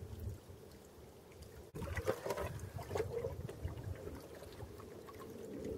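Water sloshing and splashing in a shallow spring pool as someone wades in it and scoops up silt by hand. It is faint at first, then louder and more irregular after an abrupt cut a little under two seconds in.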